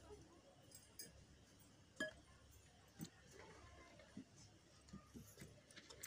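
Near silence broken by a few faint, sharp clicks and knocks, the sharpest about two seconds in, as sticks of firewood are shifted in a clay wood-fired stove.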